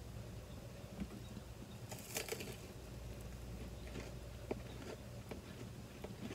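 A bite into a crisp-battered corn dog: a short crunch about two seconds in, then soft chewing clicks and mouth sounds.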